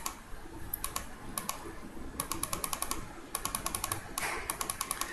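Sharp clicks on a computer, each a quick double tick, a few at first and then in fast runs of about eight a second through the second half.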